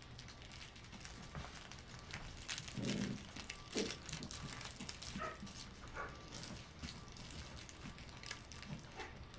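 A pack of puppies scuffling and play-fighting over a toy, paws and bodies shuffling on a padded mat. A few short puppy yips and growls come about three to six seconds in.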